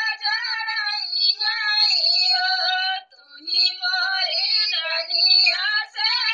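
A single high-pitched voice singing a sohar, the Hindi folk song of a child's birth, in a flowing melody with a short break for breath about three seconds in.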